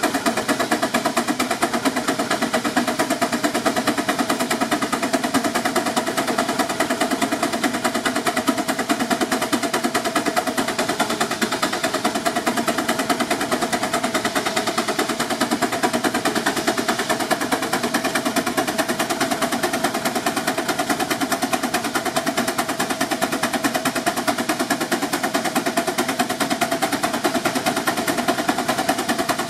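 Advance steam traction engine working under load on a belted dynamometer, its exhaust chuffing in rapid, even beats that hold steady throughout.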